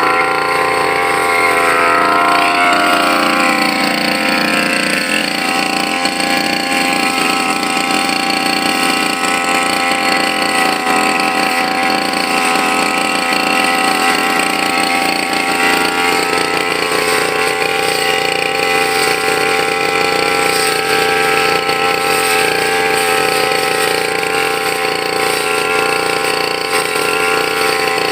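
Brush cutter engine running steadily; its pitch drops a few seconds in and then holds, with small changes in speed.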